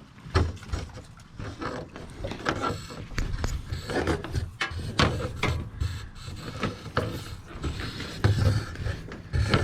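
Cable rubbing and scraping as it is fed through, with irregular small knocks and handling noise.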